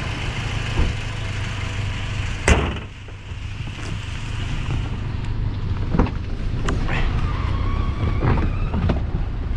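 2016 Toyota Avanza engine idling steadily, its catalytic converter removed. The hood slams shut once about two and a half seconds in, and a car door shuts about six seconds in.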